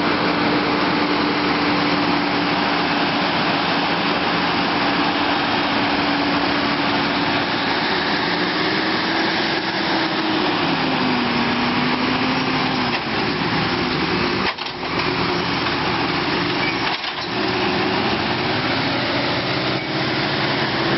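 Heavy Mercedes-Benz Actros 8x8 truck diesel engine working under load during a recovery tow. Its note holds steady, then sags and climbs back about midway as the revs drop under the strain and recover. Two short drops in the sound come a few seconds later.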